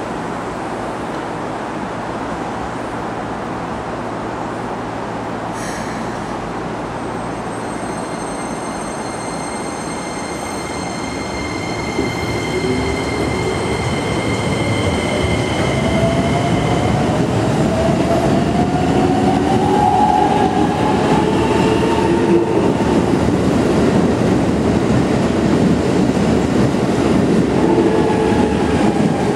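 Keikyu 2100 series electric train pulling away. Its traction motors give a whine that climbs in pitch from about halfway, while the running noise grows louder as it accelerates.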